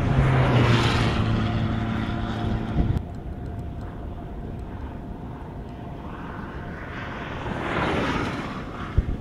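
Vehicles passing on a road: two swells of tyre noise that rise and fade over a couple of seconds, the first with a deep engine hum that cuts off about three seconds in and the second near the end. A faint steady tone runs underneath.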